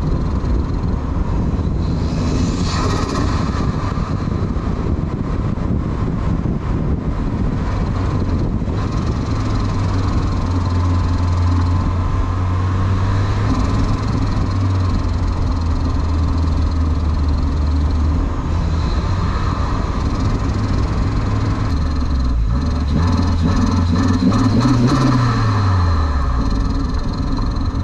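Turbocharged 1994 Mazda Miata's 1.8-litre four-cylinder engine and exhaust, driving at low speed with road and wind noise. The engine note holds steady through the middle, then near the end it revs up and falls back.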